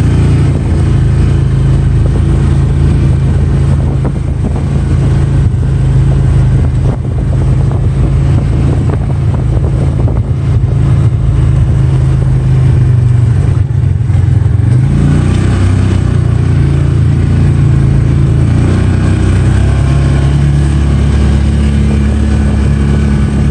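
Polaris Ranger 570 UTV's single-cylinder engine running steadily as it drives through snow. Its pitch rises about two-thirds of the way through and then holds at the higher note.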